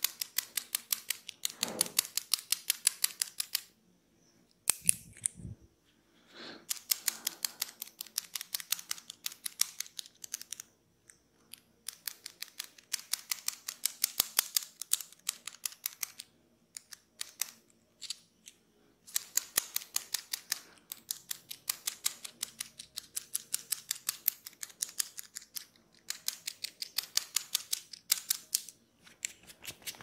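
Rapid, even runs of crisp clicks, about ten a second, lasting a few seconds each and broken by short pauses, from close-up ASMR tool work at the back of the neck.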